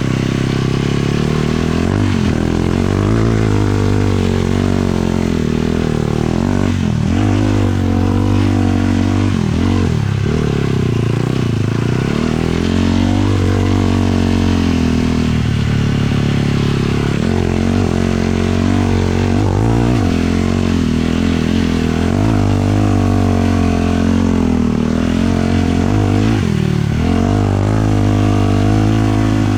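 A 450 sport quad's single-cylinder four-stroke engine running hard under riding load, its pitch climbing and then dropping sharply several times as the throttle is worked and gears change.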